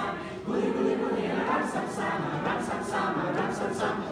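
A group of voices singing together in held notes, starting about half a second in.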